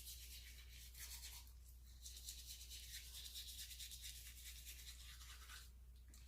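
Toothbrush scrubbing teeth with baking-soda toothpaste: faint, rapid back-and-forth strokes that stop about a second before the end.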